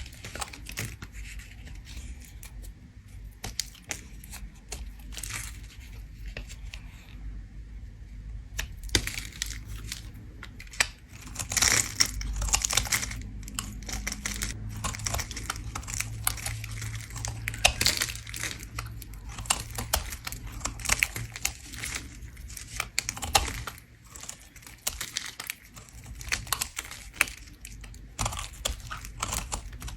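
A bar of soap being scraped with a blade: a steady run of short, dry scraping and crackling strokes as shavings come off, loudest about twelve seconds in.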